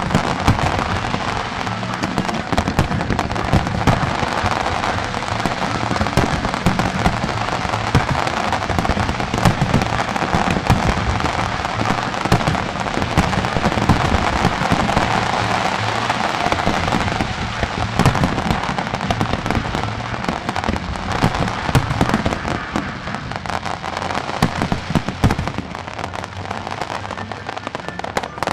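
A fireworks barrage: aerial shells bursting one after another in quick, overlapping bangs and crackles, over music playing.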